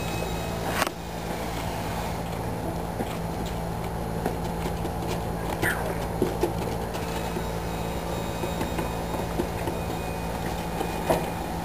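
A steady mechanical hum, made of several held tones, with a few light knocks about a second in, around six seconds in and near the end.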